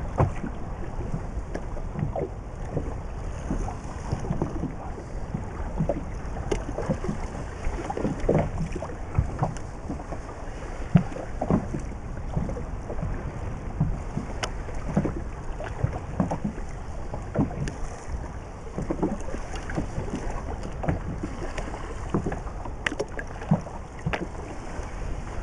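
Small waves slapping against the hull of an inflatable boat, irregular little knocks over wind noise on the microphone.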